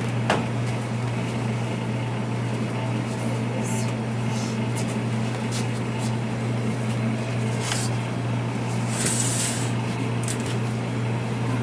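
Steady low machine hum, with a few brief soft high hisses over it, the longest about nine seconds in.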